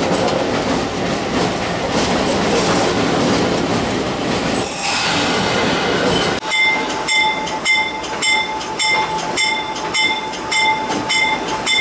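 Locomotive cab noise from a GE B23-7: the diesel engine running with a dense rumble and hiss. About six seconds in it gives way to tank cars rolling past close by, with a steady wheel squeal and a high ringing that repeats about twice a second.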